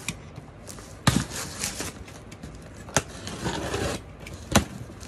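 Box cutter slicing along the packing tape of a cardboard box, a scratchy scraping, with three sharp knocks on the box about a second in, at three seconds and near the end.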